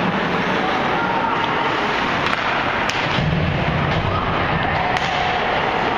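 Ice hockey game noise in a rink: a steady din with a few sharp clacks of sticks and puck, about two to three seconds in and again about five seconds in, and a dull thud around the middle.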